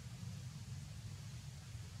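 Steady outdoor background noise: a low rumble with a faint even hiss, and no distinct event.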